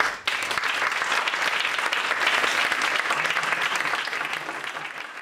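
Audience applauding at the end of a talk, a dense, even clapping that eases slightly toward the end.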